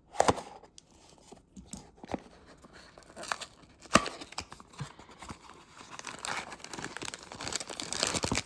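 Booster pack packaging being torn open and crinkled by hand. Scattered clicks run through it, with a sharp snap about four seconds in and steadier crinkling near the end.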